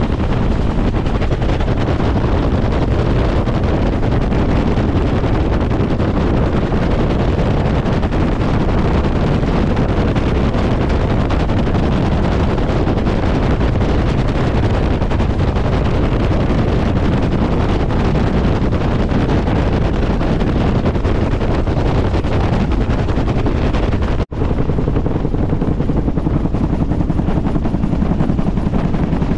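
Bell UH-1 Huey helicopter in flight, heard from inside its open-doored cabin: a loud, steady din of rotor and turboshaft engine mixed with wind buffeting the microphone. Near the end it cuts out for an instant, then resumes with a little less hiss.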